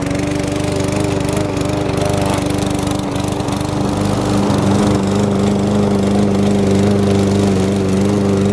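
Briggs & Stratton single-cylinder four-stroke engine on a walk-behind push mower running steadily while cutting grass. Its note shifts about halfway through.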